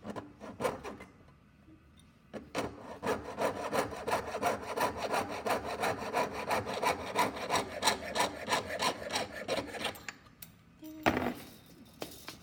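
Jeweler's saw cutting through thick-gauge sterling silver ring stock: a few hesitant strokes to start the cut, then quick, even back-and-forth strokes for about eight seconds until the piece is cut off. A single sharp knock follows near the end.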